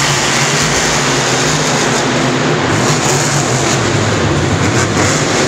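Grave Digger and Gas Monkey Garage monster trucks racing at full throttle. Their supercharged engines make a loud, steady engine note that wavers in pitch as the drivers work the throttle.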